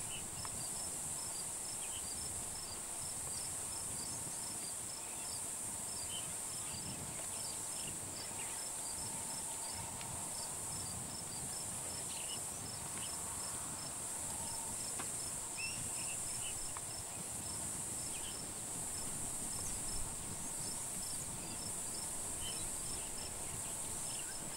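Insect chorus: a steady high-pitched buzz with a cricket-like chirp repeating evenly, about three chirps a second, and a few faint short calls scattered through it.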